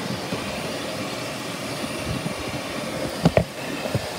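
Shark Navigator Lift Away Professional upright vacuum running steadily on its hose, with two sharp knocks a little past three seconds in.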